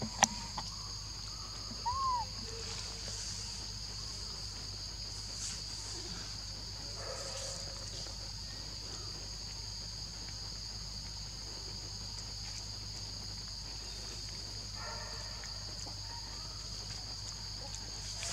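Steady high-pitched drone of forest insects, with a short rising-and-falling chirp about two seconds in and a few faint clicks.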